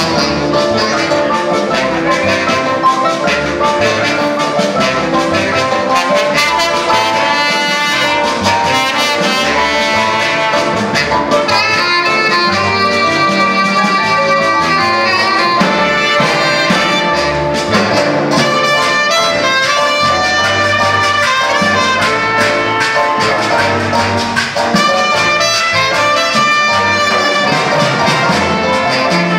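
Live danzonera orchestra playing a danzón, with trumpets, trombones and saxophones carrying the melody over bass and percussion.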